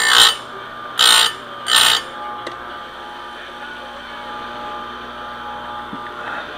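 Electric bench chain grinder's abrasive wheel grinding a chainsaw chain's cutter in three short passes about a second apart, then the grinder's motor running steadily with a hum.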